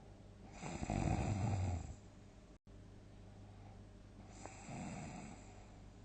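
A person snoring in deep sleep. A loud rattling snore comes about half a second in and lasts about a second and a half, then a softer snore follows near the end. Between them the audio drops out for a moment.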